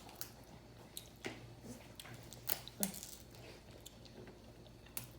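Quiet eating sounds: chewing and wet mouth noises with a few scattered sharp clicks.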